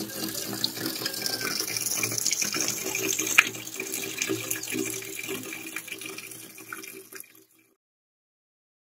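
Water running steadily from an outdoor tap in a thin stream, splashing onto the ground below. A single sharp click stands out about three and a half seconds in, and the sound cuts off a little past seven seconds.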